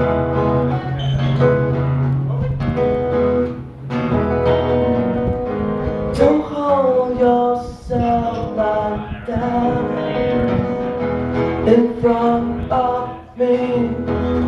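Two acoustic guitars strummed together, with a voice singing a melody over them.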